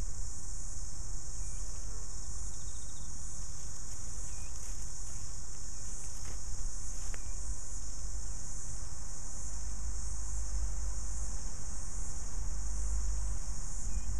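A steady, high-pitched chorus of insects over a low rumble that grows louder in the second half.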